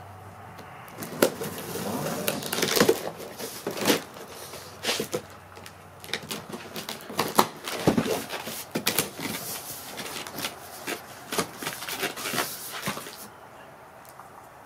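Cardboard shipping box being opened by hand: its flaps are pulled up and bent back, making a run of irregular crackles, scrapes and knocks that stops shortly before the end.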